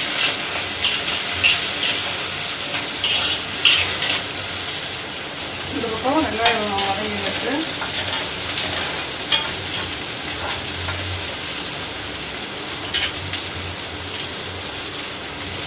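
Small onions (shallots) frying in hot oil, a steady sizzle, with a metal spoon stirring them and clicking against the pans, most often in the first few seconds and again around the middle.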